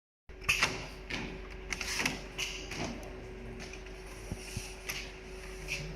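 Multihead leather sewing machine working: irregular clacks and short hisses over a steady electrical hum with one held tone.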